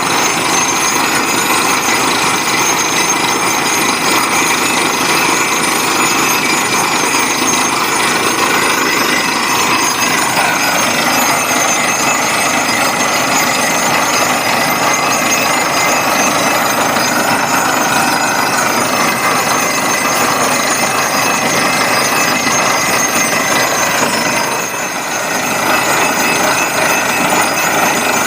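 Borewell drilling rig at work: the air-driven drill hammering continuously over the steady running of the rig's engine and compressor. The noise briefly drops a few seconds before the end.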